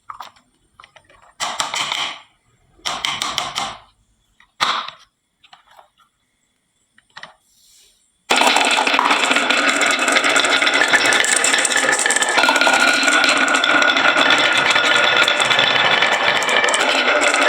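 Glass marbles clattering down a wooden zigzag marble-run slope in several short rattling bursts, with gaps between them. About eight seconds in, steady background music starts abruptly and carries on.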